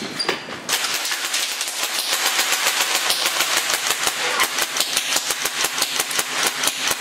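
Airsoft gun firing a fast, steady string of shots, starting under a second in and keeping up a rapid, even rate of several shots a second.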